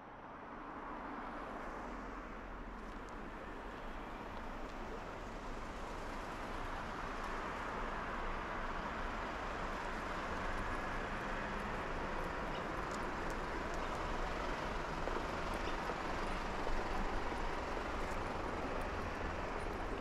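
Steady outdoor street ambience with a low hum of distant road traffic. It fades in during the first second, then grows slowly louder.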